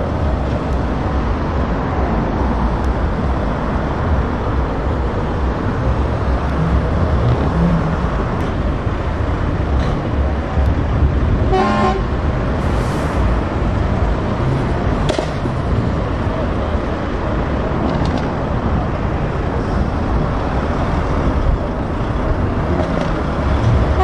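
DAF XF tractor unit's diesel engine running as the truck drives slowly past. A brief horn toot sounds about halfway through.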